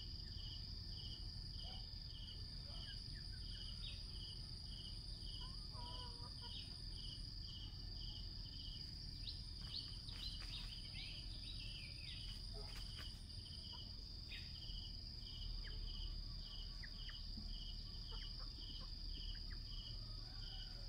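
Insects calling: a steady high-pitched drone with a second insect chirping in even pulses about twice a second, over a low background rumble. A few short, high, falling chirps come near the middle.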